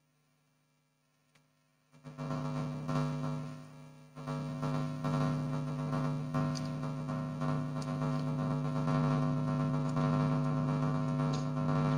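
Near silence for about two seconds, then a steady electrical mains hum comes in and holds, a low buzz with a dip about four seconds in.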